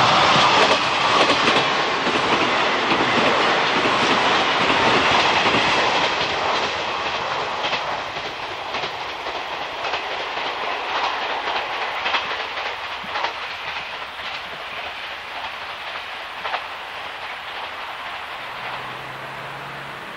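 Train running past on jointed track, its wheels clicking over the rail joints; the sound is loudest at first and fades steadily as the train moves away.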